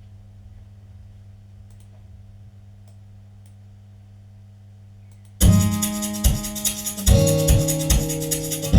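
A steady low hum, then about five seconds in a beat starts loudly: sustained keyboard/piano chords over several deep bass hits.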